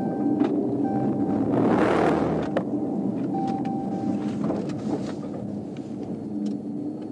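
Road and engine noise of a patrol car driving at highway speed, as heard from its dash camera. A rushing swell of noise comes about two seconds in, with scattered clicks and a faint steady tone that comes and goes.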